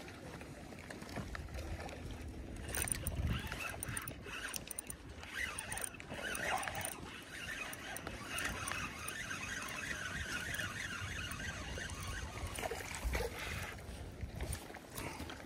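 Daiwa spinning reel being cranked to retrieve line, over water lapping against a boat hull. A couple of low thumps come about three seconds in and again near the end.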